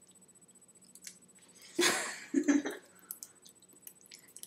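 A girl's short wordless vocal reaction in two quick bursts about two seconds in, set among faint clicks and small handling noises.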